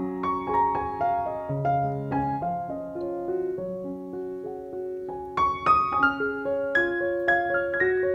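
Background piano music, a gentle melody of struck notes that grows brighter and busier about five seconds in.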